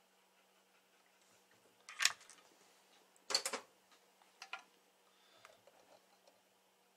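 Small hand tools being handled and set down: one sharp clatter about two seconds in, a louder rattle of several quick clicks just after three seconds, then a couple of softer clicks, over a faint steady hum.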